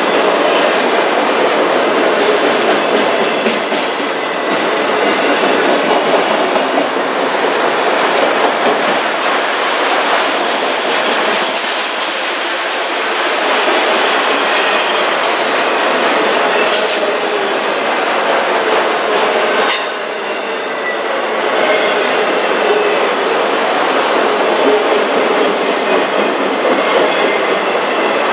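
Freight train cars, autoracks and boxcars, rolling past close by: a loud, steady noise of wheels on rail. Two sharp clanks come about two-thirds of the way through, a few seconds apart.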